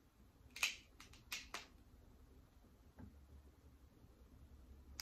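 A few faint, sharp cracks and clicks, three in the first two seconds and a lighter one near three seconds: pre-cracked king crab leg shell being broken open and handled.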